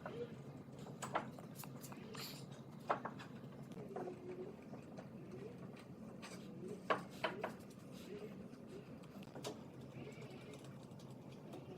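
Scattered light clicks and knocks with a few faint short squeaks, over a steady low hum.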